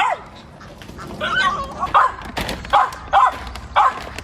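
Dogs barking, a quick run of about seven short barks at roughly half-second spacing, each dropping slightly in pitch.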